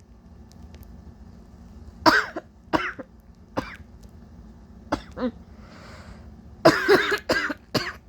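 A woman coughing in a string of short single coughs starting about two seconds in, with a breathy breath in the middle and a quicker run of coughs near the end. The coughing comes from her nose and throat, irritated by spices she sniffed to make herself sneeze.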